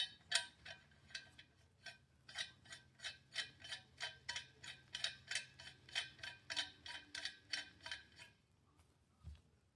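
Metal clicking as a 5/8x24 linear compensator is threaded onto a pistol barrel by hand, an even run of about three clicks a second that stops about eight seconds in.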